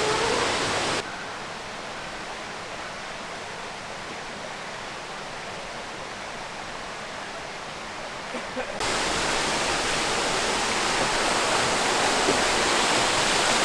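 Steady rush of a waterfall. It turns abruptly quieter and duller about a second in, then comes back louder and brighter just before nine seconds.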